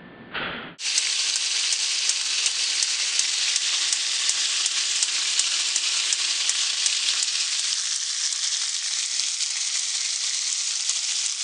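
Strips of bacon frying in a pan: a steady sizzle with fine crackles, starting under a second in after a brief noise.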